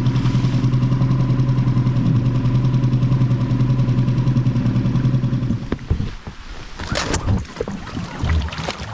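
Small dinghy outboard motor running steadily, then cut off about five and a half seconds in, followed by a few scattered knocks.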